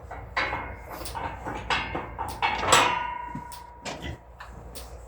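A series of metal clanks and knocks, the loudest a little past the middle, which rings on for about a second.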